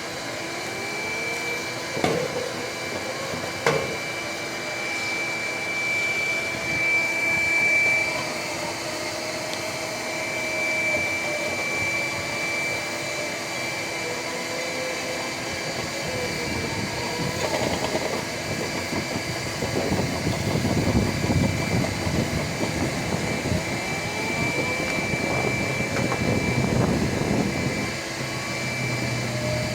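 Vacuum-type motor running steadily, its pitch drifting slightly, with two sharp knocks about two and four seconds in and irregular clattering through the second half.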